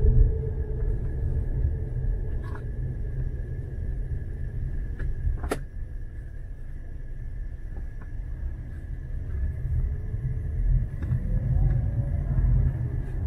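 Low, steady rumble of city street traffic, with a single sharp click about five and a half seconds in.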